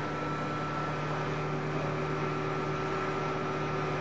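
A ship's engine running steadily: an even low hum with a faint high steady whine over it.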